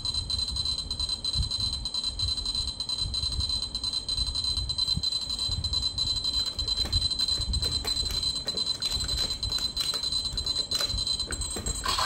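Electronic standby sound of a Bandai DX Desire Driver toy belt with a buckle set, played through its small built-in speaker: a looping sound with a steady high ringing tone. It cuts off just before the end, with a few clicks as the belt is handled.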